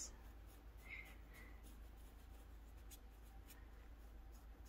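Faint scratchy rustle of a soft fan brush sweeping excess velvet flocking powder off a gel-polished nail tip, with a couple of light ticks partway through.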